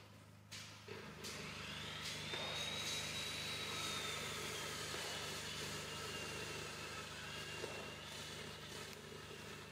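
A passing vehicle's engine, swelling in about a second in: a steady noise with a whine that climbs, then slowly sinks.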